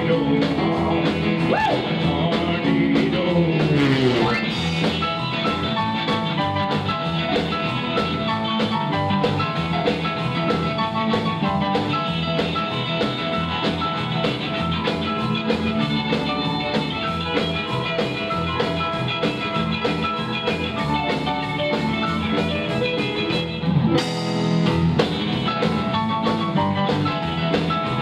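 Live rock 'n' roll band playing an up-tempo number on piano, hollow-body guitar, upright double bass and drums, with a sliding bass run a few seconds in and a short stop-time break near the end before the band comes back in.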